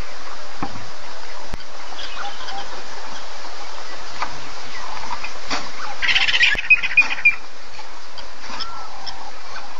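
Wild birds chirping and calling over a steady hiss, with a louder burst of rapid calls about six seconds in.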